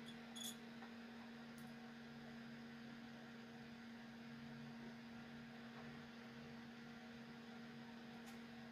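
Faint, steady electrical hum at one low pitch, with a small click about half a second in.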